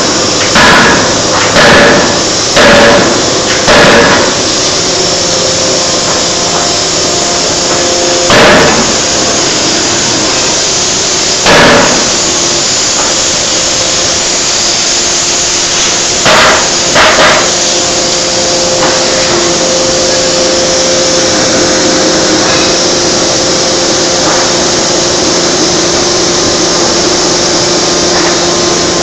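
Electro-hydraulic forging hammer striking a red-hot workpiece with heavy blows: four about a second apart, then single blows several seconds apart and a quick pair. Between and after the blows a loud steady machine hum runs on.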